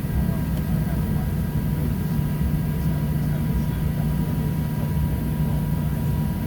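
Boeing 737-700's CFM56-7B jet engines running, heard from inside the passenger cabin as a steady low rumble with a faint, even whine above it.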